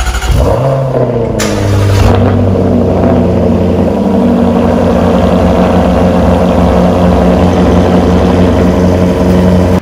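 Jaguar 5.0-litre supercharged V8 exhaust just after a cold start: the revs fall from the start-up flare over the first second or two, then settle into a steady, fast idle.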